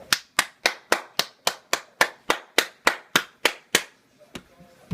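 A person clapping their hands loudly in a steady run of about fourteen claps, roughly three and a half a second, then one more clap about a second later.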